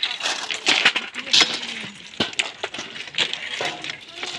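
Crushed-stone railway ballast clattering and clinking as it is shovelled between the sleepers and tipped from metal pans, a dense run of irregular sharp knocks.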